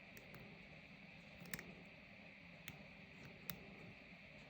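About five faint, scattered ticks of a lock pick lifting pins in the 7-pin core of an Ifam padlock during single-pin picking, over a near-silent background.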